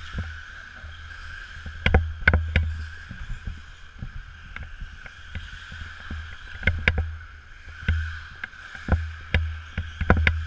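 RC buggies racing on a dirt track: a steady high whine over a low rumble, with sharp knocks in clusters every few seconds.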